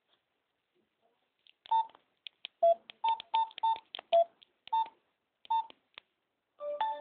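Nokia X2-02 mobile phone giving a string of short electronic beeps at two pitches, irregularly spaced, played from its speaker and recorded by a second phone's microphone. Near the end a fuller phone tone starts.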